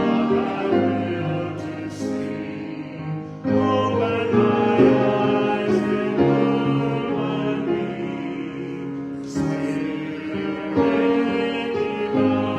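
Music of sustained chords that change every few seconds.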